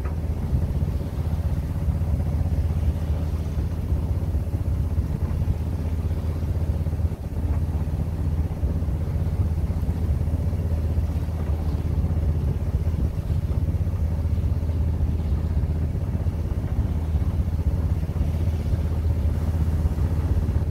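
A sailboat's inboard engine running steadily under way, a low, even drone.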